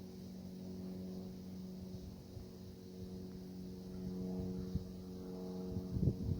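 Steady low engine drone, one even pitch with its overtones, with a few low thumps near the end.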